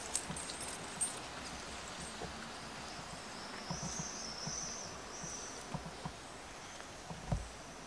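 Quiet open-air ambience of a crowd standing still, with a few footsteps on stone paving in the first second. A faint high-pitched sound comes through in the middle, and a single low thump near the end.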